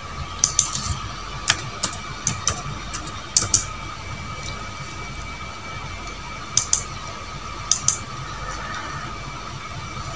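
Light, sharp clicks, about a dozen, several coming in quick pairs, over a steady faint high whine and a low hum.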